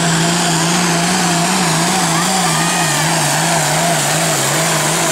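International 1486 tractor's turbocharged diesel engine running flat out under heavy load while pulling a weight-transfer sled. It is a loud, steady engine note that wavers slightly up and down in pitch.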